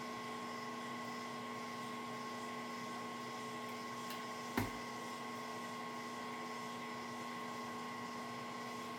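Milling machine spindle motor running with a steady hum while a drill bit is fed into hardened steel, a single sharp knock about halfway through. The bit is failing to cut the hardened steel.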